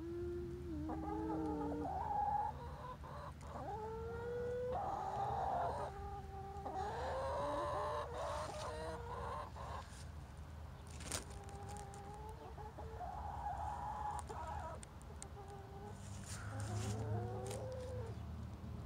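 Hens clucking and calling, a run of drawn-out calls that bend up and down in pitch, with a short lull midway and a single sharp click in it.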